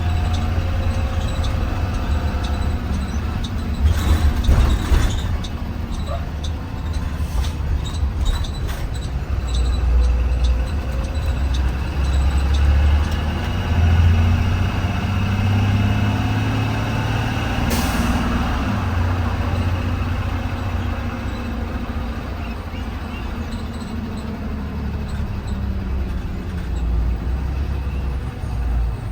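Blue Bird Vision school bus engine running as the bus drives, heard from inside the cabin, its low rumble swelling and easing with throttle. Scattered clicks and knocks of the bus body come a few seconds in, and a brief hiss about eighteen seconds in is typical of an air brake release.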